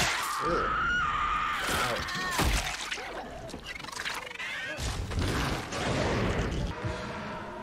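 TV drama soundtrack: crashes and shattering with a voice crying out, over music.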